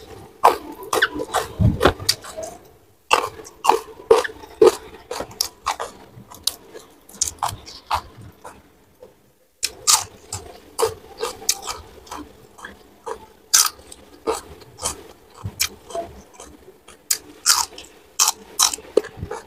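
Close-miked chewing and crunching as a person eats crisp fried gourami and raw green vegetables: irregular sharp, crackly bites and chews, pausing for about half a second just after nine seconds in.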